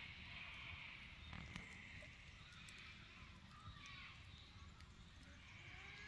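Faint evening bush ambience: a steady high hiss with a few short whistling bird calls and occasional soft crackles from a wood campfire.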